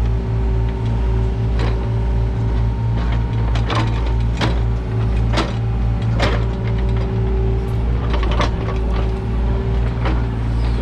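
Kubota U55-4 mini excavator's diesel engine running steadily, with about half a dozen sharp clanks and knocks at irregular moments from the machine working.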